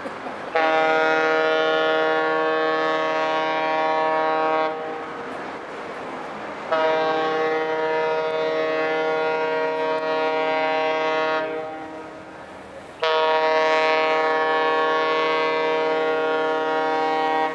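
Ship's horn sounding three long, steady blasts of four to five seconds each, every blast a deep tone of several notes at once.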